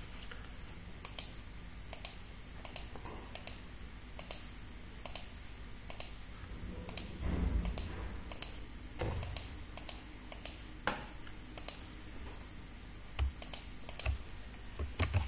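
Computer mouse buttons and keyboard keys clicking, in irregular single taps about one or two a second, with a soft low thump a little past halfway.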